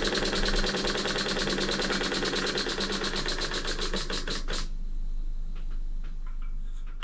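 Stuart Models single-cylinder oscillating engine running on compressed air, its exhaust giving a fast, even chuffing beat. The beats spread slightly and then stop suddenly about four and a half seconds in as the engine comes to rest, leaving a few faint clicks.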